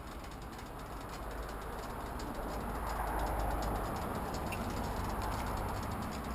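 Road and vehicle noise: a low rumble with a hiss over it, swelling about three seconds in and easing off again.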